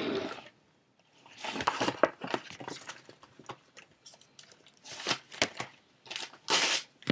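Typing on a keyboard mixed with rustling handling noise: irregular clusters of quick clicks with a few short rustles.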